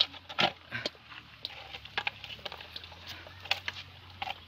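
Live fish being picked by hand out of a woven bamboo fish basket over a bucket: scattered irregular clicks, rustles and wet slaps of the basket and the flapping fish.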